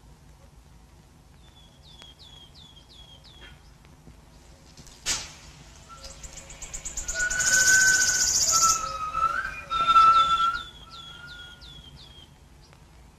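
Jungle ambience from an old film soundtrack: a bird gives runs of short, quickly falling chirps, and a sharp snap comes about five seconds in. Then a loud, high buzzing pulse speeds up and holds for about two seconds, followed by a second burst and steady whistled calls, before the bird's chirps return near the end.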